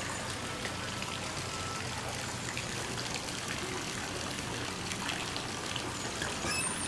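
Steady background hiss with faint scattered ticks.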